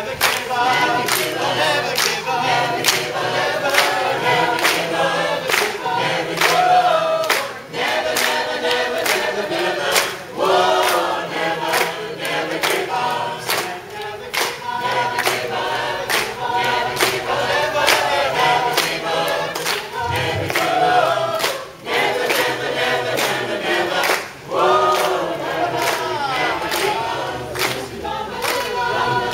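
Choir singing a cappella, with steady hand claps keeping the beat.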